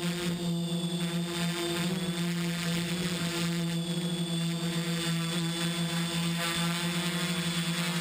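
XAircraft X650 V4 quadcopter's electric motors and propellers droning at a steady pitch, heard through the GoPro mounted on the craft, with a thin high whine above the drone.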